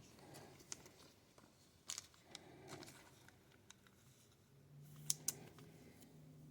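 Faint clicks and light rustling of trading cards being handled, with a few sharp little ticks, a pair of them close together near the end.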